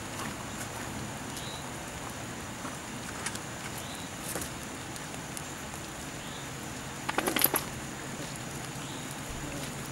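Young Weimaraner and Vizsla puppies scuffling about in a barn pen, with a few faint short high squeaks and a brief burst of rapid scratching clicks about seven seconds in.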